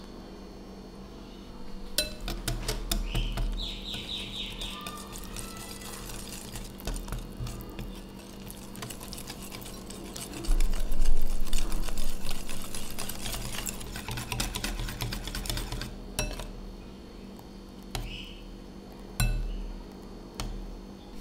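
Metal wire whisk beating a wet egg-and-flour batter in a glass bowl: quick scraping, clinking strokes against the glass that start about two seconds in and get faster and louder past the middle. The whisking stops, then a few separate clinks follow near the end.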